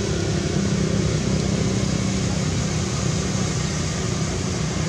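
A steady low mechanical drone, like a motor or engine running, that holds an even level throughout.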